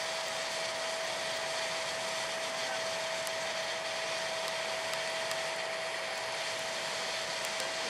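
Steady turbine rush with a constant high whine from the parked Boeing 777's auxiliary power unit, with no change in pitch or loudness.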